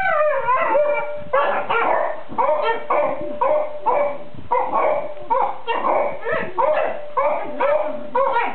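Basset hound puppies grumbling in their sleep: a long whine falling in pitch, then a run of short whimpering yips, about two a second.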